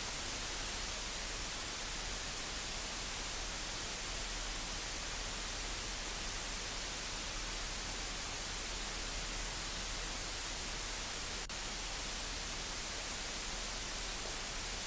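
Floodwater rushing over a road and bridge, heard as a steady, even hiss.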